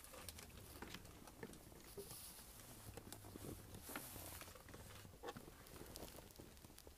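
Near silence inside a passenger railcar: a faint steady low hum with scattered small clicks and ticks.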